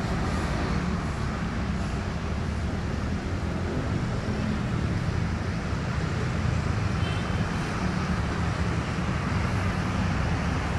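Steady low rumble of traffic noise.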